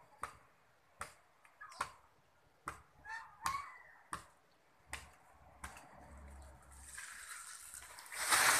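Machete chops into an areca palm trunk high overhead: sharp knocks, roughly one every three-quarters of a second. Near the end comes a rising rush and crash as the cut-off top of the palm falls through the surrounding fronds.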